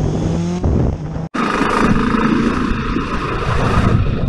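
Motorcycle engines running under way, heard from the rider's camera with wind rushing over the microphone. A brief dropout a little over a second in marks a switch to a different bike's engine and wind noise.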